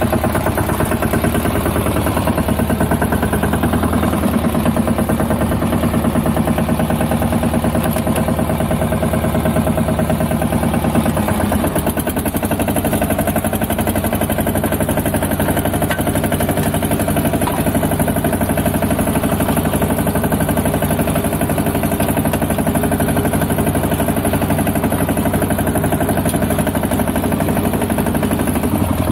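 Lombardini 3LD 510 three-cylinder air-cooled diesel on a Bertolini 417S two-wheel tractor running steadily while driving a rotary tiller, with a brief slight dip in engine level partway through.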